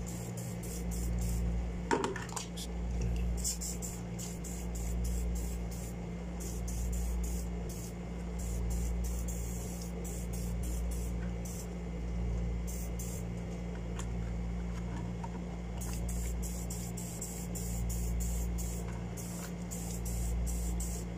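WD-40 aerosol can spraying onto a spinning reel's parts in many short hissing squirts and a few longer ones, flushing dirt out of the reel. A steady low hum runs underneath, with one small click about two seconds in.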